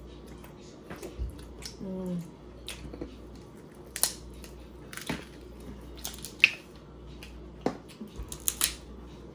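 Crab leg shells being cracked and snapped apart by hand while eating: an irregular run of sharp cracks and clicks, the loudest about two-thirds of the way in.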